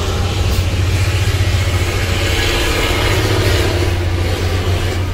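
Van engine running at low speed as the van rolls slowly across a ferry deck, heard from inside the cab: a steady low hum under an even hiss.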